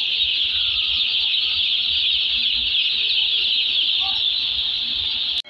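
Crates of day-old chicks peeping all together: a dense, steady, high-pitched chorus that cuts off abruptly near the end.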